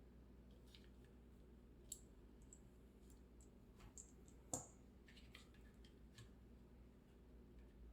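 Faint, scattered small clicks and taps of a screwdriver and plastic parts being handled while a new battery and its cable are fitted into a Nintendo Switch Joy-Con; the sharpest click comes about halfway through, over a low hum.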